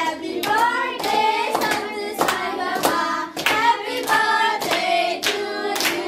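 A group of children singing together, clapping their hands to a steady beat of roughly one to two claps a second.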